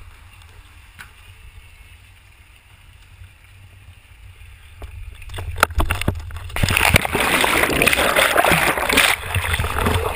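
A person jumping into a swimming pool: a few knocks, then a loud splash about six and a half seconds in, followed by continuous splashing and churning water close to the camera.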